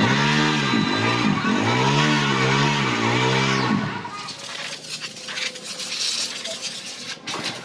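Honda Megapro motorcycle's single-cylinder engine revved in quick repeated blips, its pitch rising and falling again and again. It stops about four seconds in, leaving a quieter stretch of faint clicks and hiss.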